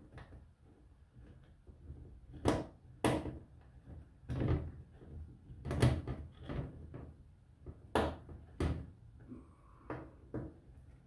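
Irregular metallic knocks and clicks as a hex driver turns in the Allen cap screws that fasten a one-shot lube pump to a sheet-steel mill-stand cabinet. There are about six louder knocks, from roughly two and a half seconds in until about nine seconds, with smaller taps between them.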